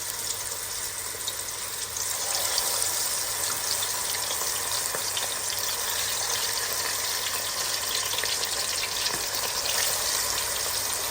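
Marinated chicken pieces deep-frying in hot coconut oil in a pan: a steady sizzle full of small crackling pops, growing a little louder about two seconds in.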